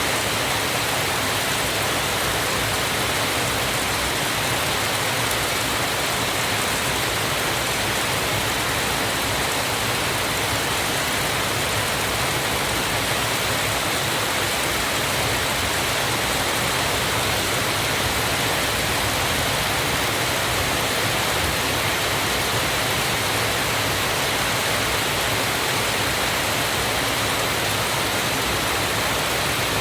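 Steady, even rushing of falling water, a continuous hiss with no breaks or changes.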